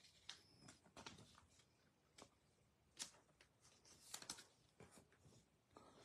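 Faint rustling and light taps of trading cards being picked up, handled and set down on a table mat. The sounds come as scattered short clicks, a little louder about three and four seconds in.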